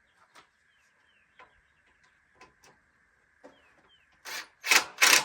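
Hand assembly of a plastic rocking chair: a few light clicks and taps as screws and parts are handled, with faint bird chirps. Near the end come several loud scraping bursts, the last lasting most of a second.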